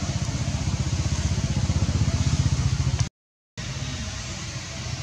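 An engine running steadily with a fast low pulse, like a nearby motorbike idling. The sound drops out completely for about half a second, three seconds in.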